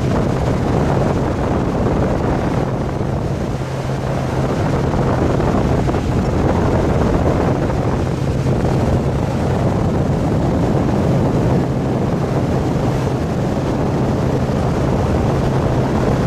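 Tow boat's engine running steadily at speed, a low drone under the rush of water from the wake and wind buffeting the microphone.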